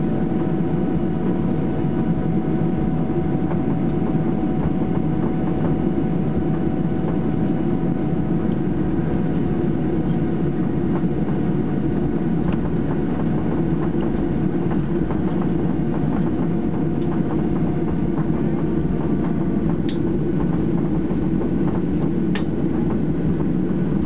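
Cabin noise of a Ryanair Boeing 737-800 rolling on the ground after landing: a steady low rumble from its CFM56 engines and wheels. A faint engine whine fades away about two-thirds of the way through, and a couple of light clicks come near the end.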